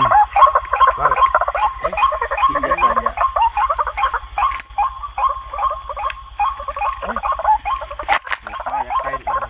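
A dense night chorus of frogs calling, many short repeated calls overlapping, over a steady high-pitched trill. A single sharp click sounds about eight seconds in.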